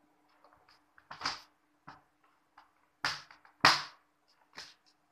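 A reassembled computer keyboard being handled and pressed down: a run of sharp plastic clicks and knocks, the loudest a little past halfway.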